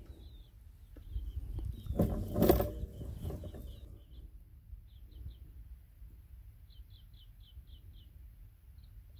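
Small birds chirping in short, high repeated notes, with a quick run of about six chirps near the end, over a low wind rumble. About two seconds in, a louder burst of noise with a low hum lasts about a second and a half.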